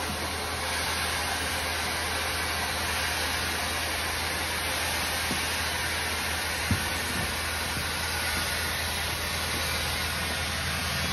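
Compressed air from a firefighter's SCBA air cylinder hissing steadily through a hose into the tube of an NRS ASR 155 inflatable rescue boat as it fills. A single sharp click sounds about two-thirds of the way through.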